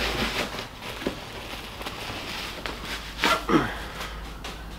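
Plastic wrapping rustling and crinkling as a tube bender is unpacked from its cardboard box. A brief louder sound with falling pitch comes about three and a half seconds in, as the bender's handle is taken out.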